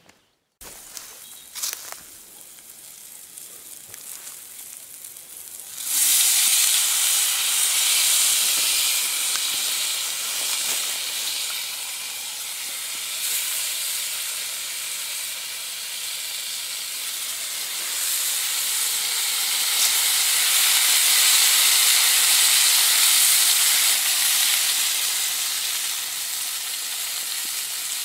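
Sliced raw potatoes frying in a hot pan: a loud sizzle starts suddenly about six seconds in and keeps going, rising and easing.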